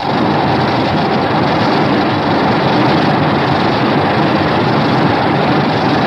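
Kaiju sound effect: a loud, steady rushing noise with no clear pitch that starts abruptly.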